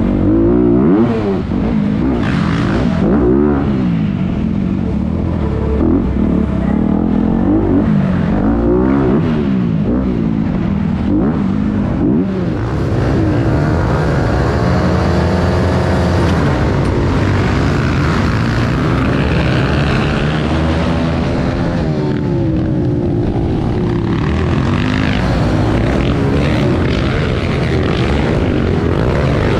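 Several dirt bike engines racing together, revving up and down so their pitches overlap, rise and fall.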